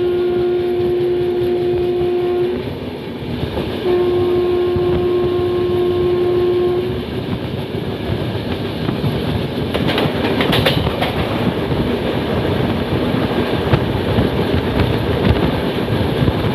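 Two long blasts of an Indian Railways train horn, each held on one steady tone: the first stops about two and a half seconds in, the second runs from about four to seven seconds in. Under and after them the moving passenger train rumbles and its wheels clatter over the rails, with a quick run of clicks about ten seconds in.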